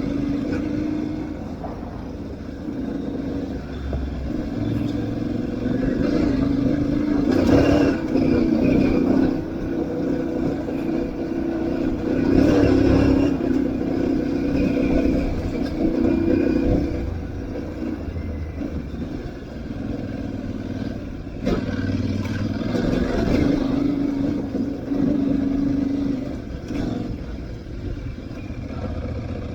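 Aprilia Tuareg 660's parallel-twin engine running under way, its revs stepping up and down over and over, with a few sharp knocks along the way.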